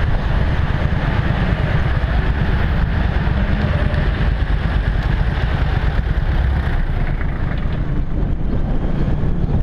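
Kymco Venox 250 motorcycle's V-twin engine running steadily at low city speed, with wind rumbling on the helmet-mounted camera's microphone.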